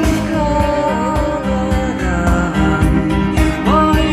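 A song with singing and a steady beat, played back through vintage Tannoy Monitor Gold loudspeakers.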